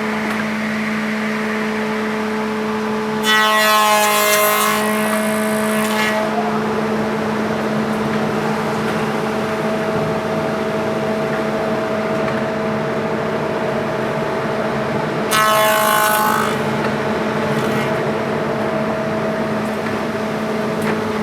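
Woodworking milling machine (spindle moulder) running steadily with a constant hum, and twice getting louder and brighter as a timber impost is fed through its cutters: a pass of about three seconds a few seconds in, and a shorter one about fifteen seconds in.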